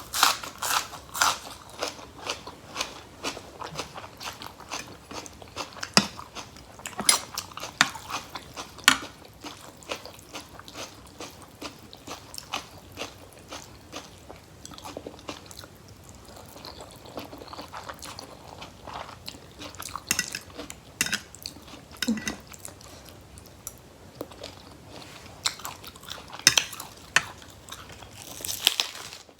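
A person chewing and biting food close to the microphone, with crunchy bites and many short sharp clicks scattered throughout.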